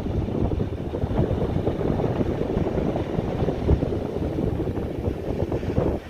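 Wind buffeting the microphone: a loud, gusty low rumble that flickers unevenly without any steady pitch.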